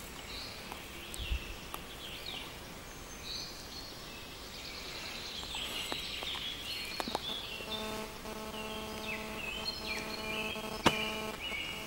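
Woodland birds singing, a continuous run of short, high chirping and sweeping notes. From about eight seconds in a steady droning hum joins, and a sharp click comes near the end.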